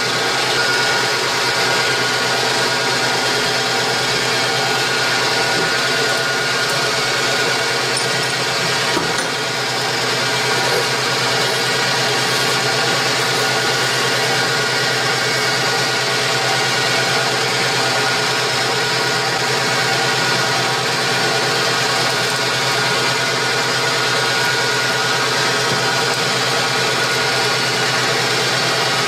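Metal lathe running with a steady, unbroken machine hum from its motor and spindle drive, while a twist drill fed from the tailstock bores into the end of the spinning metal workpiece.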